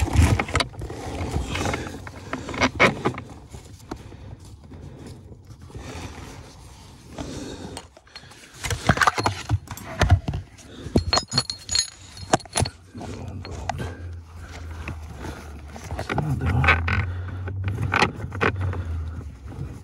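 Irregular clicking, knocking and scraping of metal and plastic car pedal-box parts being handled and fitted by hand under the dashboard.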